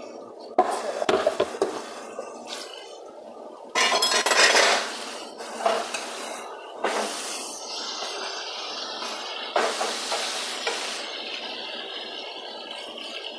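A metal spoon clattering and scraping against a cooking pot in irregular strokes as chicken and vegetables are stirred, with food sizzling in the pot.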